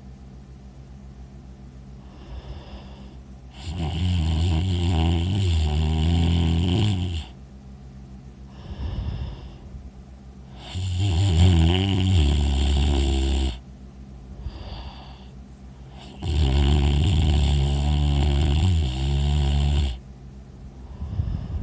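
A person snoring loudly in sleep: three long snores about six seconds apart, with quieter breaths in between.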